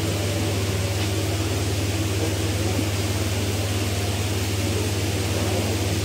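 A steady low hum with an even hiss over it, unchanging throughout.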